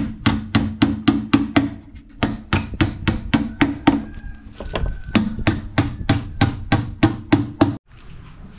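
Steel claw hammer driving nails into a plywood drawer front, about three blows a second. The hammering stops suddenly near the end.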